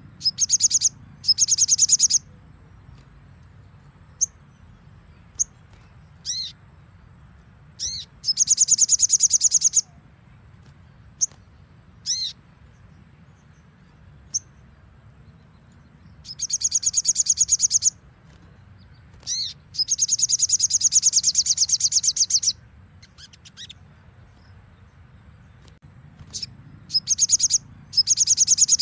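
Sogon (a sunbird) singing: bursts of very fast, high-pitched trills lasting one to two and a half seconds, repeated about seven times, with single sharp chirps and a few sliding calls in between.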